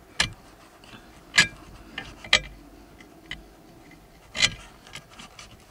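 About seven sharp metallic clicks and taps, irregularly spaced: a small metal spacer tube and a gas strut's end fitting being pushed onto the mounting bolt of a Maggiolina AirTop roof tent.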